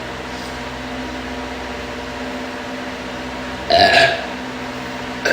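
A girl burps once, a short loud belch about three and a half seconds in, over a steady background hum.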